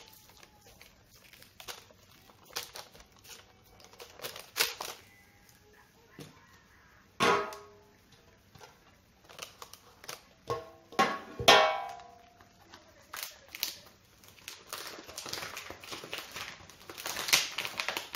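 Chopsticks and hands handling marinated meat and parchment paper on a hotplate: scattered light clicks and rustles, with a few sharper ringing clinks, one a little over a third of the way in and a cluster about two-thirds in. A faint hiss builds near the end.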